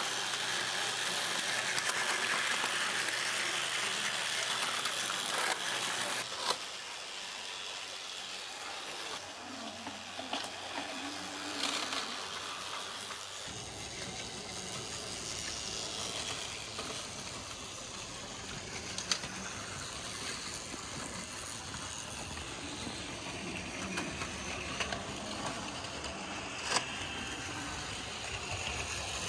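Small battery-powered toy trains running along plastic track, a steady mechanical whirring with a few sharp clicks. The sound changes character twice.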